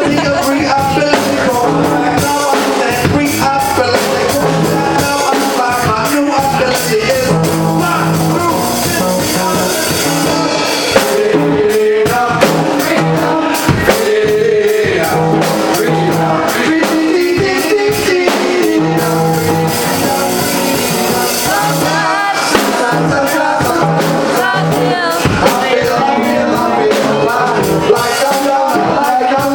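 Live band playing loud music on drum kit, electric bass and acoustic guitar, with singing.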